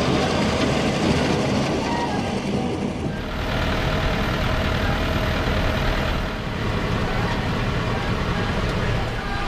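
John Deere tractor running with a tulip-topping machine cutting the flower heads off the rows: steady engine and machinery noise, with an abrupt shift in the sound about three seconds in.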